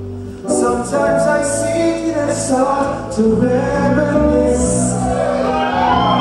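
Music with a heavy bass line starts about half a second in and plays loudly, with a voice singing over it near the end.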